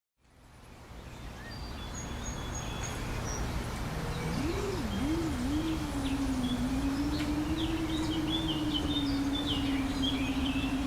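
Outdoor ambience fades in, with birds chirping over a low rumble. About four seconds in, a small FPV drone's motors start buzzing: the hum wavers up and down at first, then settles into a steady drone.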